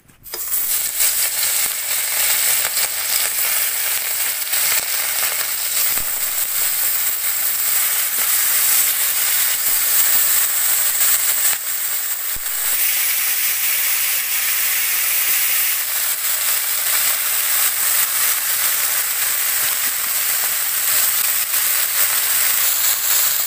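Small whole fish, coated in turmeric and spice paste, sizzling in hot oil in a kadai. The sizzle starts suddenly as the first fish goes in, then runs on steadily as the batch fries.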